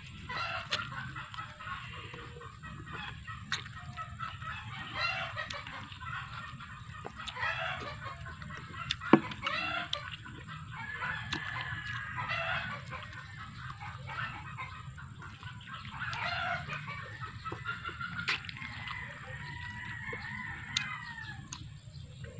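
Chickens clucking and calling over and over, with two longer drawn-out calls near the middle and near the end. Scattered sharp mouth clicks from eating duhat fruit, the loudest about nine seconds in.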